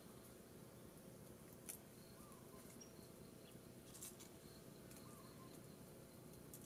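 Near silence: faint forest background with a few soft clicks as a bamboo trigger stick and vine cord are handled, about two and four seconds in, and a sharper click at the very end. Faint short chirps come a few times.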